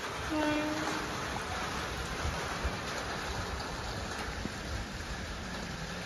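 Steady rain falling. About half a second in there is a brief pitched tone of about half a second.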